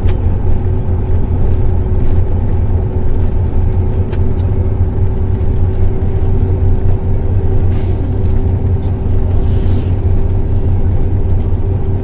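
Steady road and engine rumble heard from inside a moving vehicle, with a constant low hum and a faint, even whine above it. A few brief light clicks come through.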